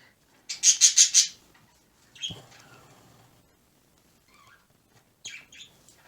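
Pet birds chirping: a quick run of about five loud, high chirps about half a second in, then a few softer, scattered calls.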